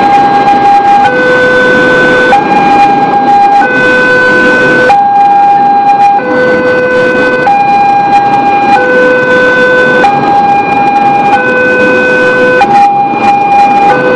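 Railway level-crossing alarm of the Daop 8 Surabaya kind, sounding a melodic two-note chime that alternates between a higher and a lower tone about every 1.3 seconds. Under it runs the rumble of a passenger train's carriages passing over the crossing.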